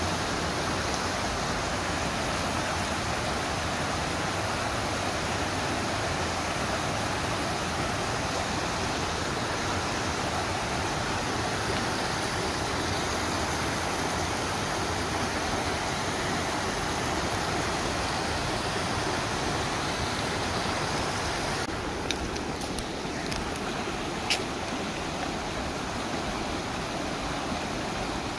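Steady rush of a shallow mountain stream running over stones, with a few sharp clicks about three quarters of the way through.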